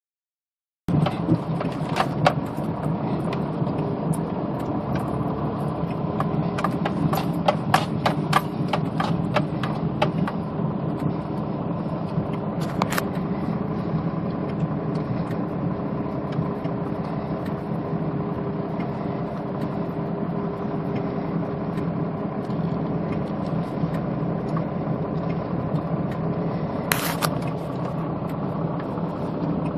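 Car running, heard from inside the cabin: a steady engine hum under a noisy rush. Sharp taps and clicks come in a cluster over the first ten seconds, with another single sharp sound near the end.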